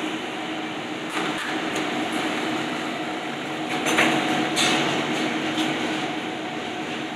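Steady whirring hum of kitchen ventilation, with a few brief scrapes of a palette knife spreading minced venison and mushroom over cling film on a plastic cutting board.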